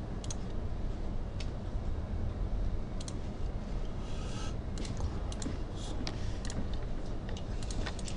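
Scattered, irregular clicks of a computer mouse and keyboard, a dozen or so, over a steady low hum, with a short rustle about four seconds in.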